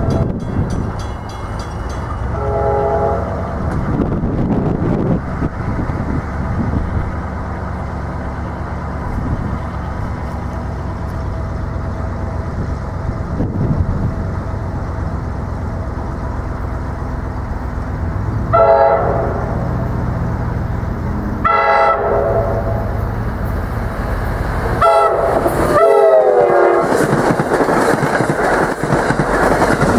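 Horn of an approaching NJ Transit push-pull train, sounded from its leading Comet IV cab car. A faint distant blast comes a few seconds in. Then comes the grade-crossing signal of long, long, short, long blasts, the last one bending in pitch as the train draws alongside, with wind rumbling on the microphone throughout and the cars' wheels clattering past near the end.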